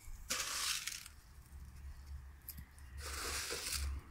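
Granular 12-12-12 fertilizer shaken from a plastic container and scattered onto bare soil: two short bursts of granules, the first just after the start and the second about two and a half seconds later.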